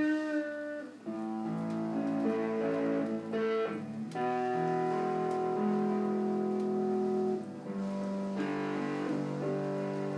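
Live band playing the slow instrumental introduction to a song: guitar with held chords that change every second or two.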